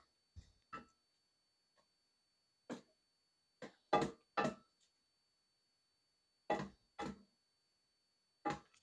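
Short clanks and knocks of a cooking utensil against a cast iron pan, about nine of them spaced irregularly, the loudest about four seconds in.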